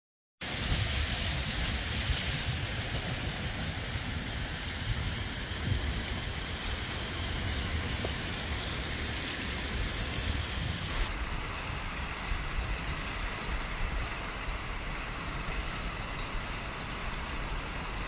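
A strong wind gust of about 45 mph buffeting a security camera's microphone: a heavy, uneven low rumble over a steady rushing hiss of wind through trees.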